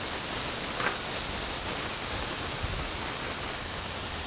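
Smashed 80-20 ground beef patties and chopped pancetta sizzling steadily on a hot griddle, a continuous hiss of fat and moisture frying.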